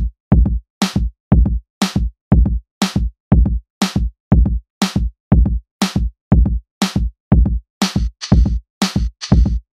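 Background music: an electronic drum-machine beat of about two hits a second, with a hissy high layer joining near the end.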